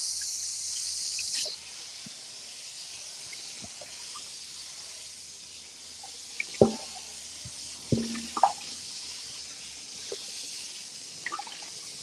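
Kitchen tap running into a sink, the flow dropping a little about a second and a half in, with a few knocks and clinks of things being handled in the sink.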